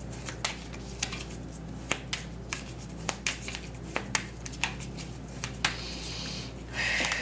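Tarot deck shuffled by hand, overhand: a string of irregular light snaps and clicks as cards slide and tap together, with a short rustling hiss near the end.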